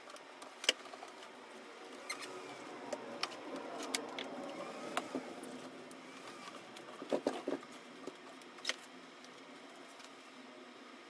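Handling noise: scattered light clicks, taps and scrapes of hands on a 3D printer's plastic casing and PTFE tubing, with a quick cluster of clicks about seven seconds in.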